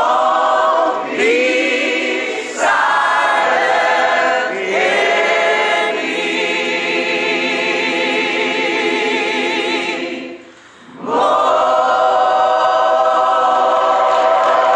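A group of voices singing together without instruments, holding long notes with a wavering pitch. The singing breaks off for a moment about ten seconds in, then starts again.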